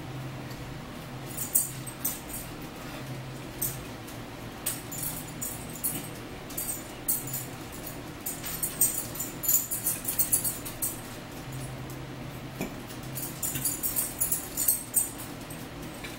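Metal fork clicking and scraping against a plate in irregular bursts, with a low hum in the background.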